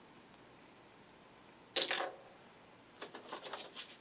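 A single sharp plastic clack about halfway through, then a second of crackly clicking and rustling as hands work in the thin plastic packaging tray.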